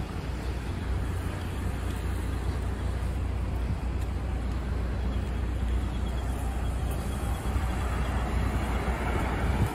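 Busy city street traffic, cars and buses running past, over a steady low rumble.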